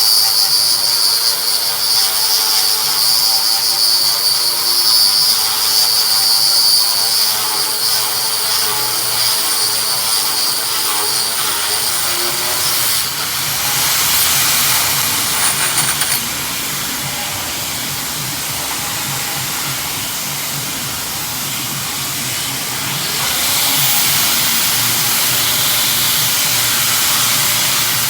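Power tool running steadily with a high whine for about the first thirteen seconds, then giving way to a broad hissing noise that drops in level and swells again near the end.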